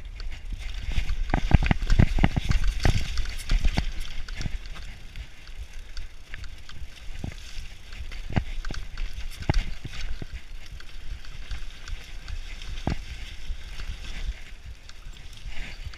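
Mountain bike descending a rough forest trail: a steady low rumble of tyres and wind on the bike-mounted camera's microphone, with sharp clatters and knocks as the bike rattles over roots and rocks, most frequent and loudest in the first few seconds.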